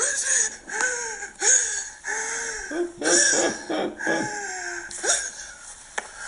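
A person's wordless voice played through a phone's small speaker: short cries that slide up and down in pitch, with breathy gasps between them. A sharp click comes near the end.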